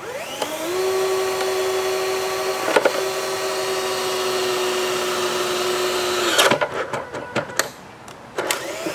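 DeWalt 12-volt cordless drill spinning up and running at a steady whine as it bores a hole through the plastic wall of an electronics enclosure, stopping after about six seconds. Clicks and a brief restart of the drill follow near the end.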